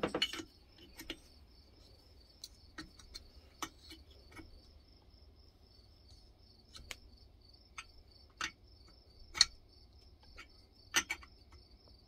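Metal wrench clinking and clicking on a spark-plug-hole vacuum adapter and cylinder head as it is snugged down: scattered sharp clicks at irregular intervals, the loudest two near the end. A steady high chirring runs underneath.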